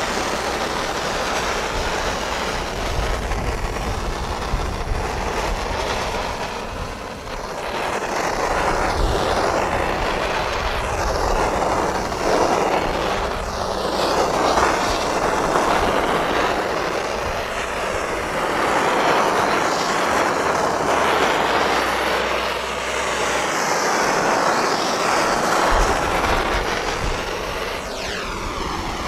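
Handheld gas torch hissing steadily as its flame is swept over wet epoxy resin to pop air bubbles. The hiss swells and fades every few seconds as the torch moves.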